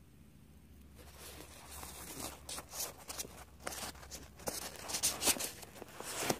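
Handling noise of fidget toys being fitted into a storage case: irregular rustling and scraping with sharp clicks, starting about a second in, loudest near the end, and cutting off abruptly.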